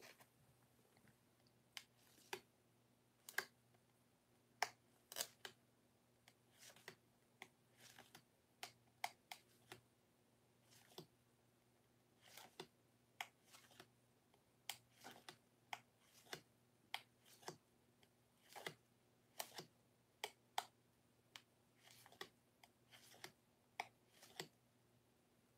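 Faint, irregular sharp clicks and taps, about one or two a second, some louder than others, over a faint steady low hum.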